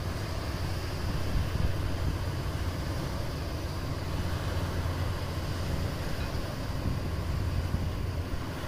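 Steady low rumble with a hiss above it, the sound of a boat under way on the water.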